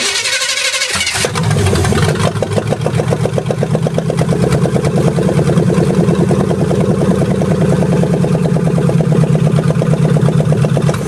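Chevy small-block V8 cranked by the starter, catching after about a second and then running loud through bare exhaust manifolds with no pipes or muffler. It is running cold, with the choke still on as the owner thinks.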